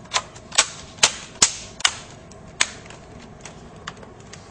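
Plastic laptop screen bezel clips snapping into place as the cover is pressed onto the display lid: a string of sharp clicks, about six in the first two and a half seconds, then a few fainter ones.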